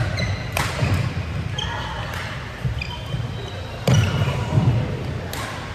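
Badminton doubles rally: rackets smack the shuttlecock every second or two, with shoe squeaks on the court floor between the hits.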